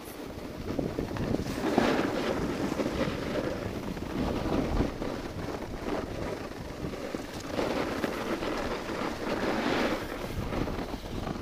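Wind rushing over a phone's microphone on a snowboard run downhill, mixed with the hiss of the board sliding over snow, swelling louder at times.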